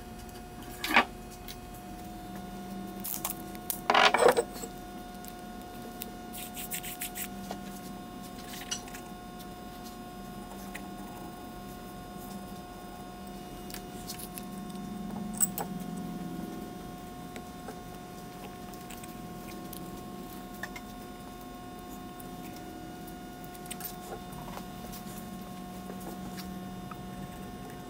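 Quiet workshop room tone with a steady faint hum, broken by a few light clicks and taps from handling a steel rule, a pencil and an axe head on a wooden workbench. The sharpest taps come about one and four seconds in.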